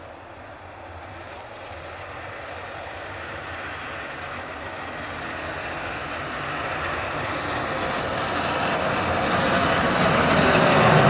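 Tractor with a front-mounted snow plow blade pushing snow along the road: engine and the rushing scrape of the blade in snow, growing steadily louder as it approaches.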